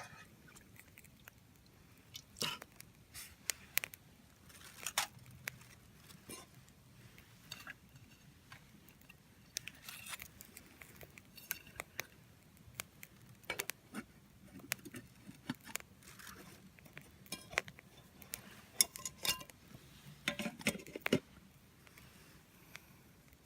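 Small wood fire crackling in a compact folding grill, with irregular sharp pops, a few of them louder, and a brief fuller clatter near the end.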